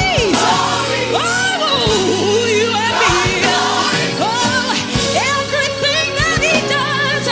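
Gospel song: a solo singer with wavering, ornamented vocal runs over sustained instrumental backing.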